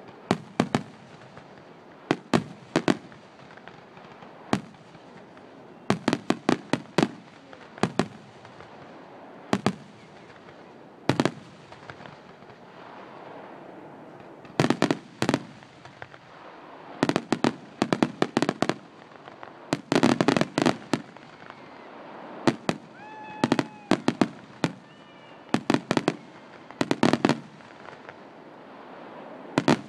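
Aerial fireworks shells bursting in a finale barrage: sharp bangs in quick groups of two to five, with a new group every second or two.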